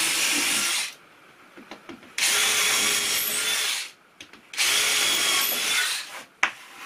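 Cordless drill boring pilot holes through a timber block: three short runs of the motor whining steadily, the first stopping about a second in and the next two each lasting about a second and a half, with a short click near the end.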